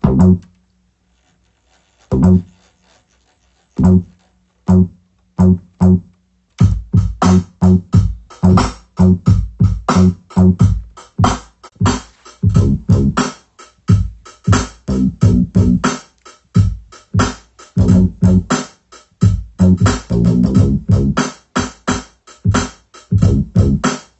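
Akai MPC 2500 sampler playing a boom-bap beat: a few single sample hits tapped out on its pads, spaced a second or two apart, then about six and a half seconds in the full beat of drums and sample starts and plays steadily.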